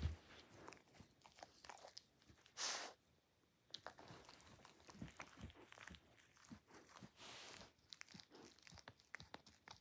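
Dachshund chewing and gnawing on a plush corduroy teddy: soft, irregular crunching bites and fabric scraping, with a brief louder rustle a few seconds in.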